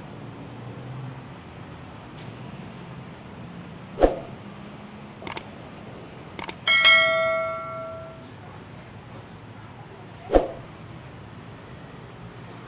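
A bell-like metallic ring that fades over about a second and a half, heard in the middle of the steady hum of street noise, with a sharp knock a couple of seconds before it and another a few seconds after.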